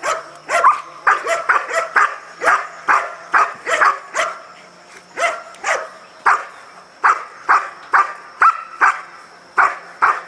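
A dog barking repeatedly on the leash, about two sharp barks a second, with a brief pause a little before the middle.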